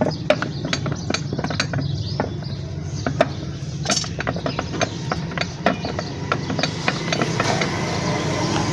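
Irregular sharp metallic clicks and taps from hand tools working at a small 78cc motorcycle engine's crankcase, as the stuck case halves are worked apart, over a steady low hum.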